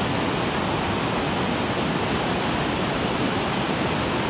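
Flood-swollen mountain trout creek rushing over rapids at high water: a steady, even rush.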